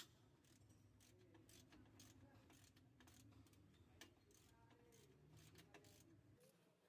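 Near silence: faint scattered clicks and ticks over a low background hum.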